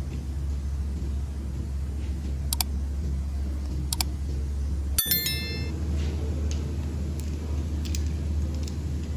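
Metal pieces clinking a few times over a steady low hum. One sharp clink about five seconds in rings on briefly, like a metal part or tool set down.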